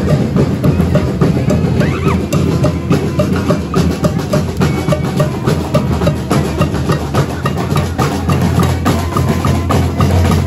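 Parade percussion band playing snare drums and bass drum in a fast, steady rhythm.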